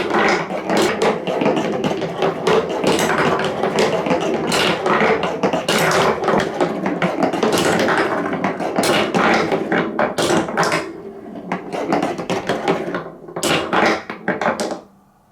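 Marbles rolling and clattering down a plastic TrixTrack marble run, a dense stream of clicks and knocks over a rolling rumble. It thins out about ten seconds in and stops suddenly near the end.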